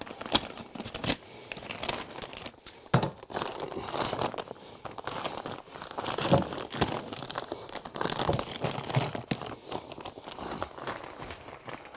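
The plastic vapor-barrier wrap of an insulation blanket crinkling and crackling irregularly as gloved hands press and tuck the blanket into place.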